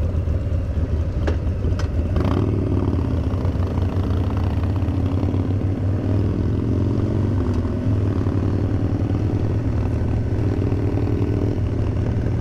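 Harley-Davidson Street Bob's V-twin idling at a stop with a steady, low, pulsing beat, heard from the rider's seat. A couple of short clicks come about one and two seconds in.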